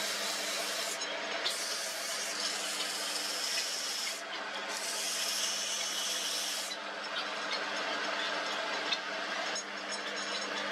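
Sandpaper rubbing against a wooden knife handle spinning on an electric lathe: a hiss that comes in passes of a few seconds with short breaks between them and grows softer in the last few seconds. Under it, the lathe's motor gives a steady hum.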